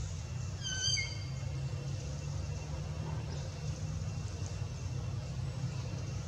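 A young macaque gives a brief high-pitched squeal, with a slight fall in pitch, about a second in. A steady low rumble runs underneath.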